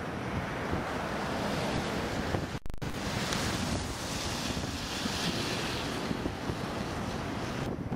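Storm wind rushing and buffeting over the camera microphone, a steady noise with a brief drop-out about two and a half seconds in.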